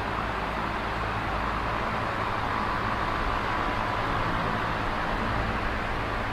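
Steady, even rushing noise, like traffic or white noise, at a constant level with a faint low hum beneath it.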